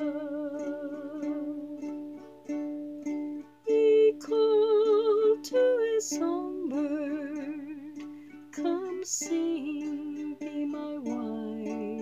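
A slow ballad: a strummed stringed instrument with a voice singing long notes with vibrato over it.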